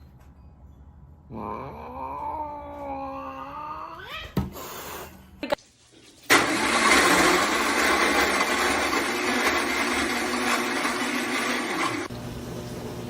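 A cat's drawn-out, wavering yowl, followed by a couple of sharp clicks and then a loud, steady rushing noise that lasts about six seconds and cuts off near the end.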